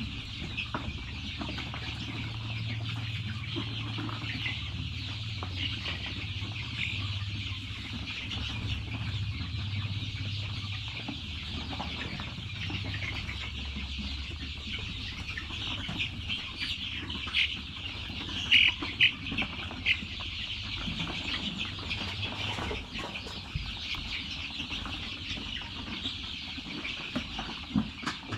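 A flock of young chickens cheeping and clucking steadily while they feed, with a few louder sharp clicks about two-thirds of the way through. A low hum sits under the first half.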